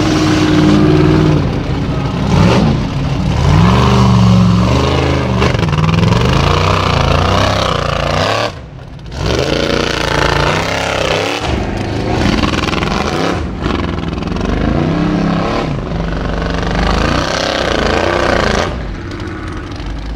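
Formula Offroad hillclimb buggy's engine revving hard under load on a steep dirt climb, its pitch rising and falling over and over. It drops away sharply for about half a second some eight and a half seconds in, then picks up again, and falls lower near the end.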